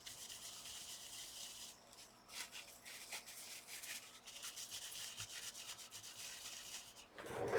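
Rapid rubbing strokes of an alcohol-dampened wipe scrubbing old thermal paste off a laptop's GPU and CPU dies, with brief pauses. A louder knock comes near the end.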